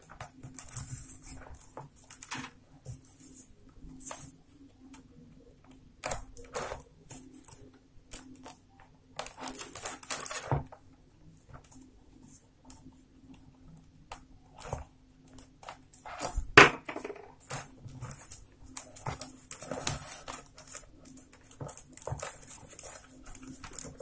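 Rolled newspaper tubes rustling and scraping against each other as they are pushed through a woven paper-tube border, with scattered small clicks and one sharp knock a little past the middle.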